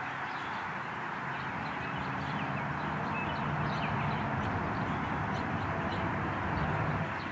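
Outdoor ambience: a steady low rumble and hiss, a little louder in the middle, with scattered short, high bird chirps.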